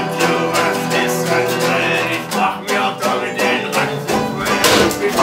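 Folk-style plucked-string music: a mandolin and a round-backed lute strummed together in a quick rhythm. Sharp strikes join in near the end.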